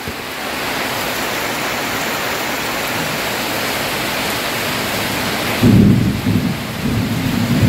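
Heavy rain pouring steadily onto standing floodwater. About five and a half seconds in, a loud low rumble comes in over it in uneven surges.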